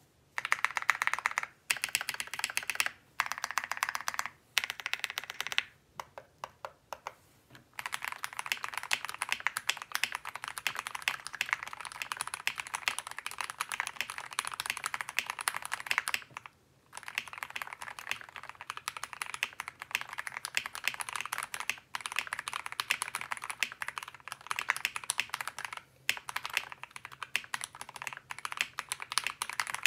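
Typing on a GMMK Pro mechanical keyboard fitted with Gateron 8008 Ink linear switches, lubed with Krytox 205g0 and filmed, on a polycarbonate plate with tape-modded PCB and GMK keycaps. Short bursts of fast keystrokes with brief pauses and a few single key presses, then a long run of steady rapid typing broken by two short pauses.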